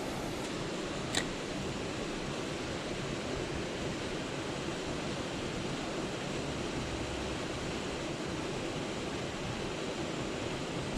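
Steady rushing noise of wind on the camera microphone, with one sharp click about a second in.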